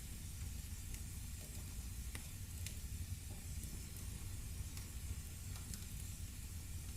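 Firewood burning in a fireplace: a steady low rumble and hiss, with small crackles and pops scattered throughout.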